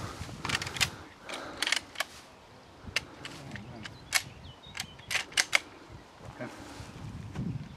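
A dozen or so sharp, light metallic clicks and clacks, spaced irregularly, as the Chiappa 1892 lever-action carbine is handled after loading. No shot is fired.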